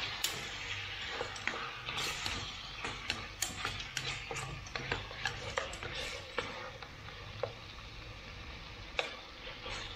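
Wooden chopsticks knocking and scraping against an aluminium pot while stirring chicken pieces frying in oil: irregular clicks, thinning out in the second half. A soft frying sizzle sits beneath, fading after the first couple of seconds.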